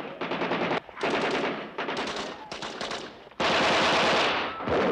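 Rapid bursts of automatic gunfire, a film's staged machine-gun fire, coming in several runs with short breaks. The loudest and longest burst comes about three and a half seconds in.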